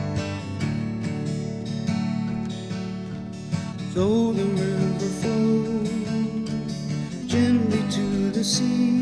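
Background music: acoustic guitar strumming, with a melody line coming in about four seconds in.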